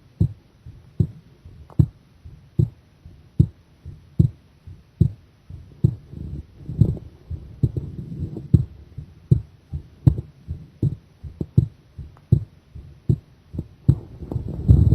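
A woman's heartbeat heard close up, a steady run of low thumps a little over one a second. From about six seconds in a low rumbling rush builds beneath the beats, and a loud rush of noise sets in at the very end.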